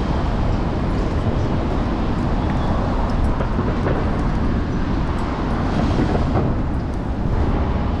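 Steady low rumble of wind and road noise on a camera mounted on a moving electric scooter's handlebars, mixed with city street traffic.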